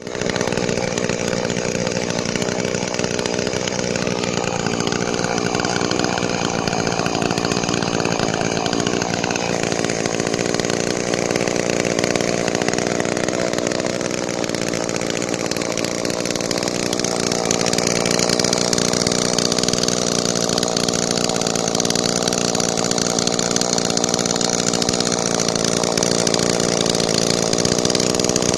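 1976 Homelite two-stroke chainsaw running steadily, growing somewhat louder and brighter about two-thirds of the way through.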